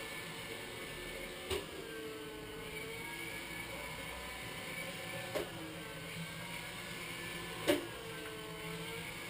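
iRobot Scooba 230 robotic floor scrubber running with a steady motor whir. Three sharp knocks come about a second and a half, five seconds and nearly eight seconds in, the last the loudest, and each is followed by a whine that dips in pitch and climbs back.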